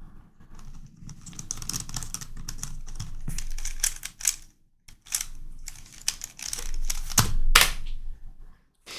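Plastic YuXin Corner Helicopter 2x2 puzzle being turned by hand: rapid, uneven runs of clicking and rattling as the non-magnetic pieces are twisted, with two short pauses and a couple of louder clacks near the end.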